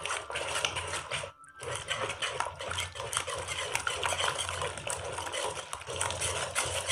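Hand whisk scraping and clicking rapidly against the inside of an aluminium pot as raw eggs and crumbled khoya are beaten together, with a brief pause about a second and a half in.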